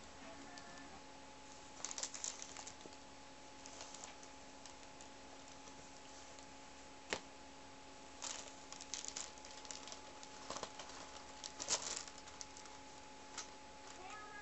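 Paper and cardboard rustling and scratching in short, scattered bursts as a cat squirms and paws inside a small cardboard box, with one sharp click about seven seconds in. A faint steady hum runs underneath.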